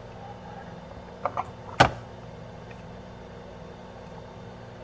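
A small resin-printed box being handled: two light clicks, then a single sharp tap a moment later, over a steady low room hum.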